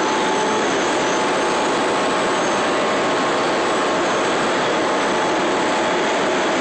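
Loud, steady rushing noise that does not change, with a faint steady hum in it.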